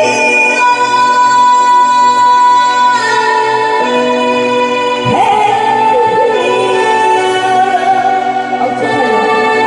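A singer performing a Korean song over an electronic organ-style keyboard backing, holding long notes and sliding into new ones.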